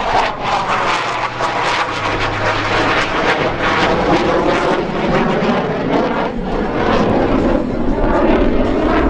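CF-18 Hornet's twin General Electric F404 turbofan engines, heard as loud jet noise from the fighter flying a low roll pass. The pitch falls steadily over the first few seconds as the jet goes by.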